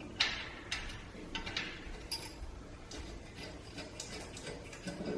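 Small metal hardware clicking and clinking at irregular moments: bolts and lock washers being handled and fitted onto the air bike's monitor arm.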